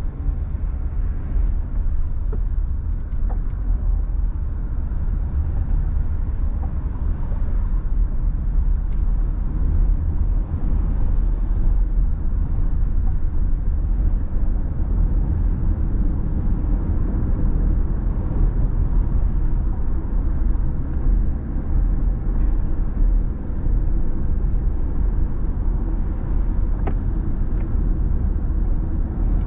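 Steady low rumble of tyre, road and engine noise inside a car's cabin cruising at freeway speed.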